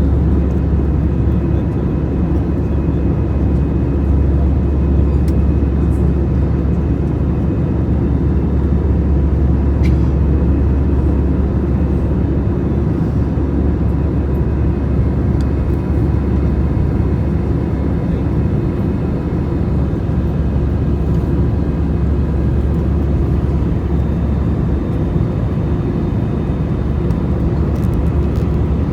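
Steady airliner jet-engine and airflow noise heard from inside the cabin: a constant low rumble with a faint steady whine above it.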